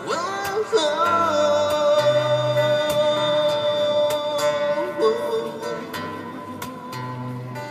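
Music of a song's closing section, with guitar accompaniment. A melody line slides up about half a second in, holds one long note for several seconds, then moves into a shorter phrase near five seconds in.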